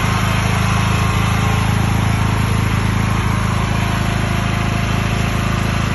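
Portable 10 kW petrol generator's engine running steadily at an even speed.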